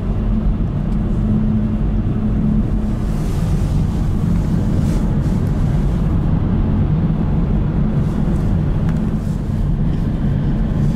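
Steady low drone of engine and tyre noise heard inside the cabin of a Mercedes-Benz car driving at speed.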